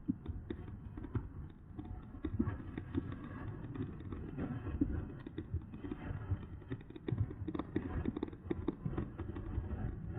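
An e-bike riding over rough ground, with wind rumbling on the microphone and irregular clicks and knocks from the bike rattling over bumps.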